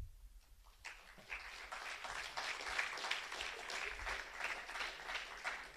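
An audience applauding, starting about a second in and dying away near the end, after a low thump at the very start.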